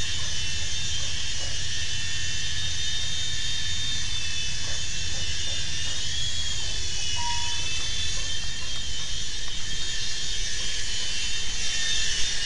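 Small electric RC toy helicopter in flight: a steady high motor and rotor whine that wavers in pitch briefly midway. Its broken rotor is patched with twist ties.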